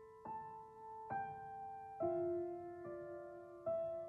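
Background music: a slow piano melody of single notes struck about once a second, each one ringing on and fading.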